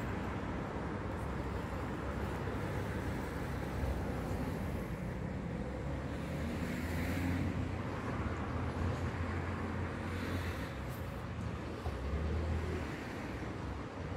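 Street traffic: a steady low rumble of road noise, with cars driving past a few times, swelling about six to eight seconds in and again near ten and twelve seconds.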